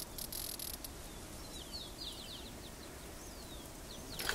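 Faint outdoor ambience with a few short, high bird chirps about two seconds in and another a little later, ending with a sharp click.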